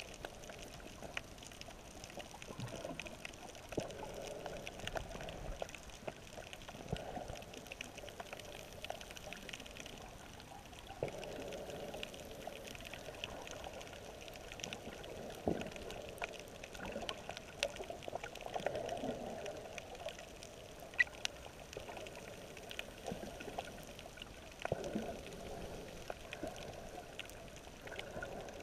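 Water sloshing and bubbling heard from underwater, muffled, with many scattered small clicks and ticks and a few louder swells.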